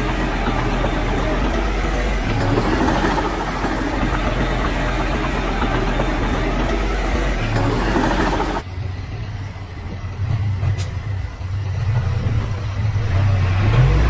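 Heavy diesel earthmoving machinery working: engine running under dense clattering and scraping for about eight seconds, then cutting abruptly to a low engine hum that grows louder near the end.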